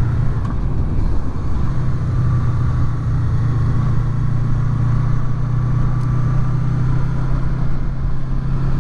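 Honda VFR800's V4 engine running at a steady cruise, one unchanging hum under an even rush of wind and road noise, picked up by helmet microphones under furry windshields.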